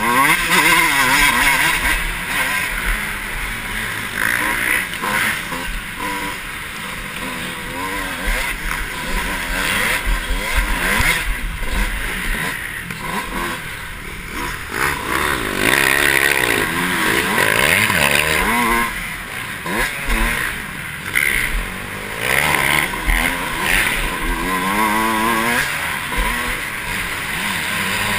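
Dirt bike engine revving hard and dropping back again and again as the bike is raced, its pitch climbing and falling with each run through the throttle. Wind buffets the helmet-mounted microphone.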